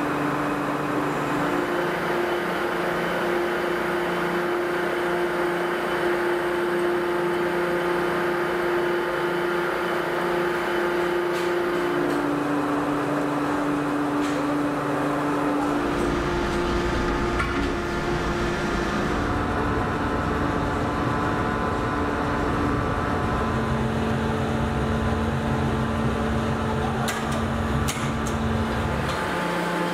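Die-casting machine running with a steady hydraulic hum whose pitch steps between a few held tones. About halfway in a deep rumble joins it and cuts off abruptly near the end, with a few sharp clicks just before.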